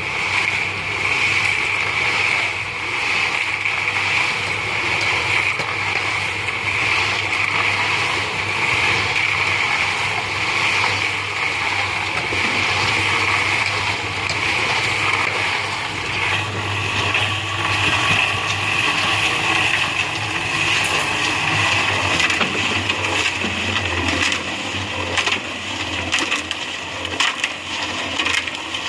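Construction machinery running steadily with a constant hiss and a low hum, its pitch shifting slightly about halfway through.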